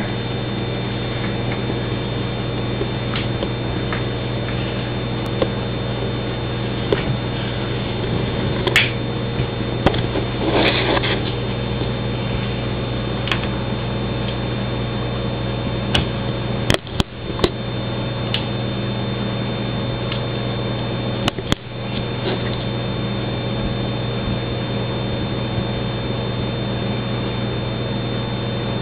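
A steady mechanical or electrical hum with several fixed tones, broken by a few faint clicks, a brief rustle about ten seconds in, and two sudden short dropouts in the middle.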